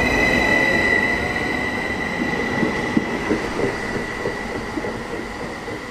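CFL class 2300 Stadler KISS double-deck electric multiple unit pulling out past the platform: rolling rumble with a steady high whine, both fading as the train draws away.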